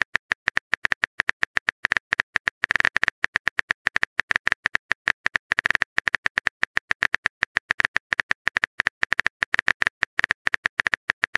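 Phone-keyboard typing sound effect: rapid, uneven taps, several a second, running on without a break.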